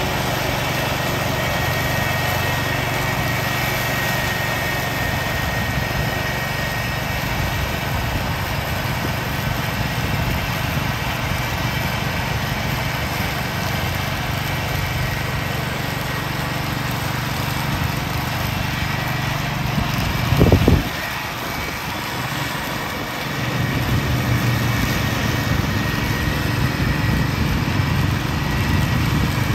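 1969 Ford 140 garden tractor running with its mower deck engaged, mulching dry leaves: a steady engine drone with the blades chopping through the leaves. About two-thirds of the way in there is a brief loud thump, then the sound drops for a couple of seconds before picking up again.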